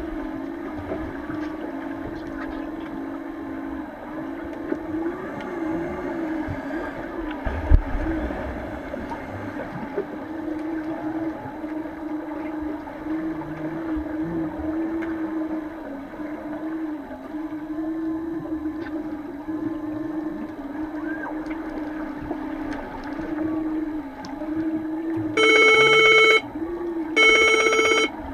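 Underwater pool sound: a steady, wavering low hum with scattered knocks and one sharp thump about eight seconds in. Near the end come two loud horn blasts, each about a second long and a second apart: the underwater signal horn marking a goal.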